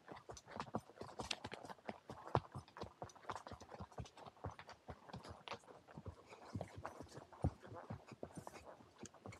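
Horse hooves clopping along a dirt-and-rock trail: an uneven run of knocks several times a second.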